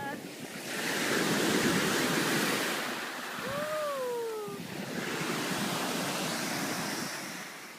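Sea waves washing in and out at the shoreline, a steady rush of surf. About three and a half seconds in, a brief voice-like cry rises and falls over it.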